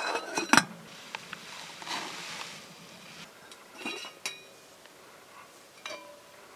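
Metal camp cookware and stove parts clinking and clattering as they are handled: a burst of clatter at the start, more clinks about four seconds in, and a single knock near the end that rings briefly.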